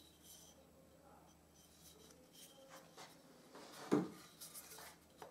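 Faint handling of pine workpieces, wood rubbing and tapping, as a routed tenon is fitted to its mortise, with one louder short wooden knock about four seconds in.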